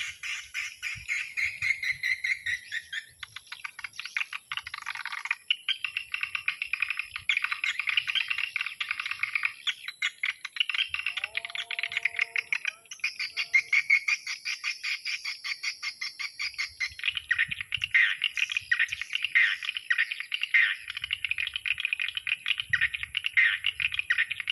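Swiftlet call sound played through a speaker on a swiftlet house: rapid chattering clicks and twitters in a fast, even rhythm, used as the evening lure call to draw edible-nest swiftlets in. A faint steady high whine sits underneath.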